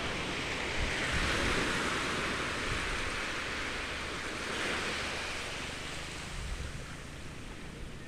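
Shallow surf washing up the sand in a steady hiss, swelling twice and fading as the wave draws back.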